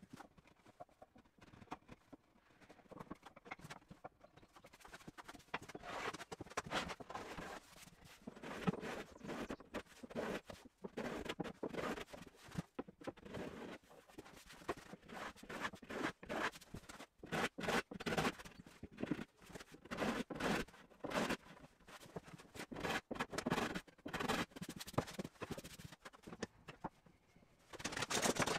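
Hand tools working the edges of a solid hardwood desk top to put a small chamfer on them: repeated, irregular scraping and rasping strokes of steel and abrasive along the wood.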